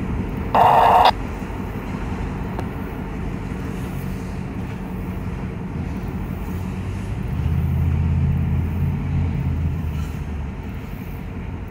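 EMD GP38 diesel locomotive's 16-cylinder two-stroke engine running as the unit moves off down the yard track; its low engine note gets deeper and louder about seven seconds in, then eases off shortly before the end. A short loud burst of voice cuts in about half a second in.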